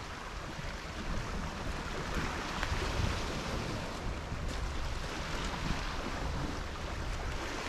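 Wind rumbling on the microphone over the steady wash of small waves on the shore.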